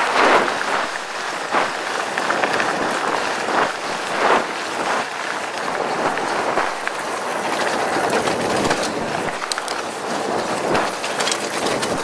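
Mongoose Tyax mountain bike riding over a dirt road: tyres rolling and crunching on the packed dirt and small stones, with the bike rattling and clicking over bumps, in uneven surges.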